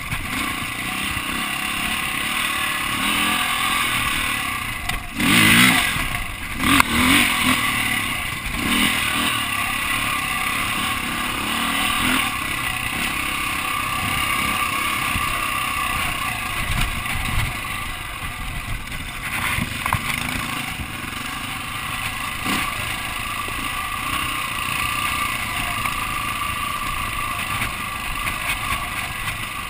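Dirt bike engine running on board as it climbs a rocky trail, with the engine note rising and falling with the throttle and the bike clattering over stones. A few louder bursts come about five to seven seconds in.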